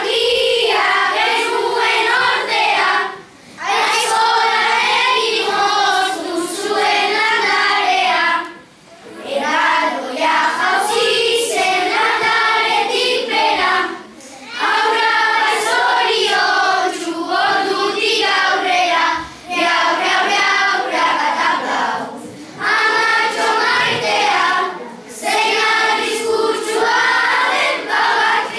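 A group of children singing together in unison, in sung phrases of a few seconds each with short breaks between them.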